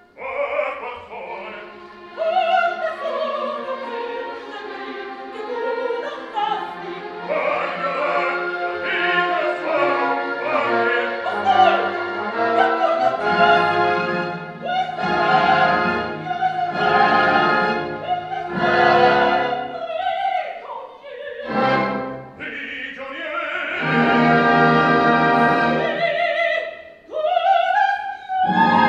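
Operatic duet for baritone and soprano with orchestra, the voices singing with vibrato. It comes in loudly right at the start, with a brief drop near the end.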